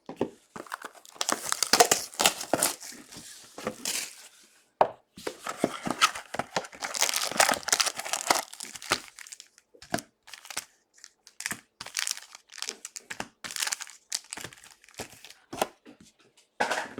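Packaging being torn open and crinkled as a sealed box of trading cards is unwrapped: two longer stretches of tearing and crinkling, then scattered short rustles and clicks.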